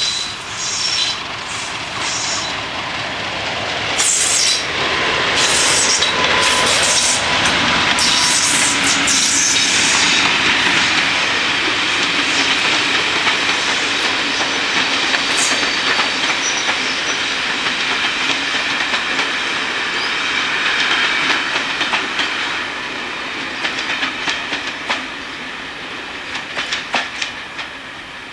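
Class 50 diesel locomotive with its English Electric V16 engine running loud as it passes, hauling a train of coaches. Near the end the coaches roll by with a rhythmic clickety-clack over the rail joints.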